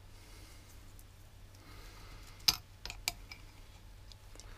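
A few light metallic clicks and knocks, about two and a half and three seconds in, as a differential thrust washer is handled and seated in the case, over a low steady hum.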